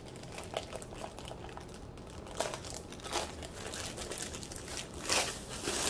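Clear plastic sleeve crinkling and rustling as a rolled canvas is handled inside it and worked out of its open end, in uneven rustles that grow louder near the end.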